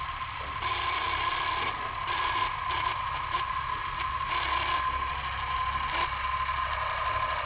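Old film projector sound effect: a steady mechanical whirr and clatter with a constant thin tone over it, and a faint click about six seconds in.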